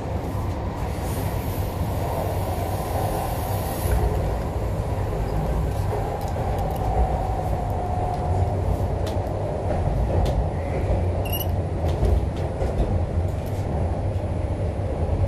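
Inside an MTR C-Train metro car running between stations: a steady rumble of wheels and running gear on the track. A faint whine rises about seven seconds in.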